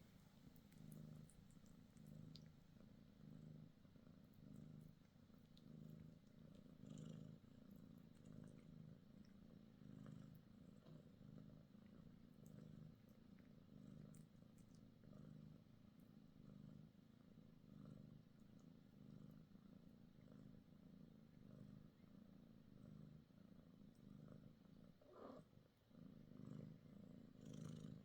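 Mother cat purring steadily, the purr swelling and fading about once a second with her breathing: a sign of a relaxed, contented cat nursing her kittens.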